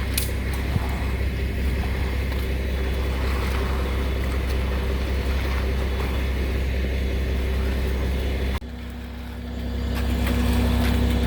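An engine running steadily with a low hum. A little over eight seconds in, the sound drops off abruptly and a different steady engine hum with a higher note swells back in.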